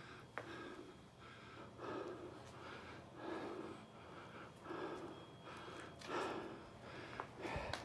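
A person breathing hard and rhythmically, about one heavy breath every second and a half, out of breath while walking uphill after climbing stone stairs. A few faint clicks sound between the breaths.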